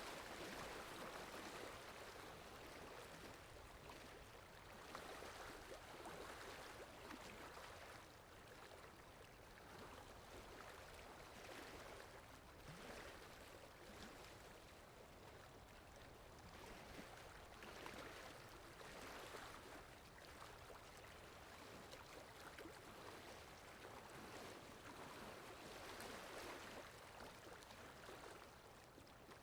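Faint flowing water, a steady rushing that swells and eases every few seconds, used as a background water sound effect.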